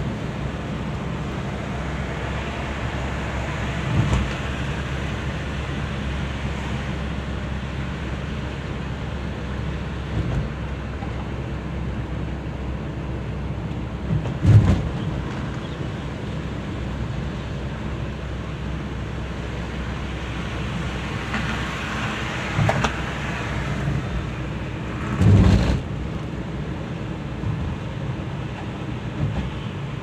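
Steady low drone of a car's engine and tyres heard from inside the moving car, broken by a few short thumps, the loudest about halfway through and another near the end.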